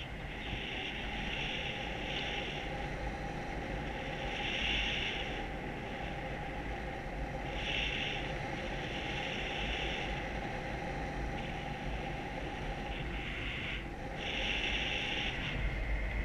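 Wind rushing over the microphone in paragliding flight: a steady low rush, with a higher hiss that swells and fades every second or two.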